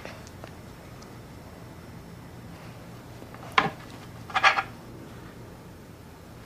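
A plastic knife cutting a soft rolled sandwich against a plastic chopping board: one sharp tap a little after three and a half seconds in, then a brief squeaky scrape about a second later, over quiet room tone.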